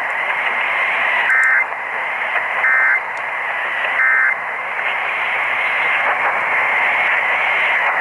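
AM radio on 720 AM hissing with static, broken by three short two-tone data bursts about 1.3 seconds apart: the Emergency Alert System end-of-message code that closes the test broadcast.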